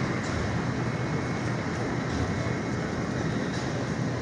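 Steady, continuous rumble of vehicle noise with no distinct events.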